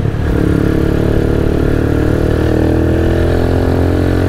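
Motorcycle engine running at a steady cruising pitch as the bike is ridden, heard from the rider's seat. There is a brief dip in level right at the start.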